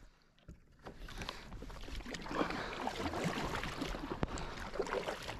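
Water splashing and sloshing against a kayak, with a few sharp knocks of gear being handled.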